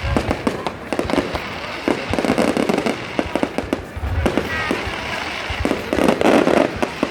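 Fireworks going off without a break: a dense run of rapid crackling pops that swells louder twice, with a brief faint whistle about halfway through.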